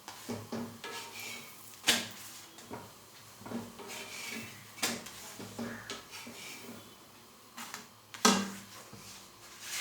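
Metal kitchen utensils knocking and clattering against a pan while paratha is frying: three sharp knocks, about 2, 5 and 8 seconds in, with lighter clicks between them.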